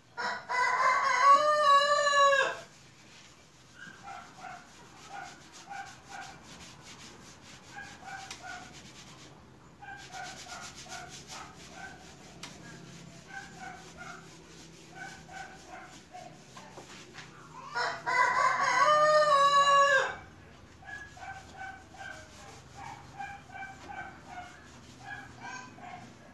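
A rooster crowing twice. Each crow is a loud call of about two seconds that drops in pitch at the end, the first near the start and the second about eighteen seconds in.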